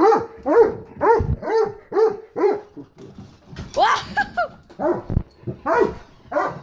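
Dog barking at a toy remote-control car: a run of short barks, each rising and falling in pitch, about two a second, then a pause and two more bursts of barks about four seconds in and near the end.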